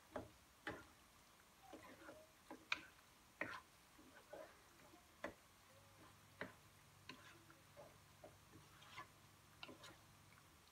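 Spatula stirring and folding pasta in cheese sauce in a nonstick pan: irregular soft clicks and taps as it knocks against the pan, a dozen or so at uneven spacing.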